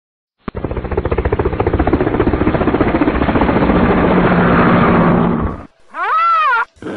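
Battery-operated toy airliner playing its engine sound effect through a small speaker: a loud, fast buzzing rattle that starts about half a second in and stops suddenly after about five seconds, followed by a short wavering tone that rises and falls.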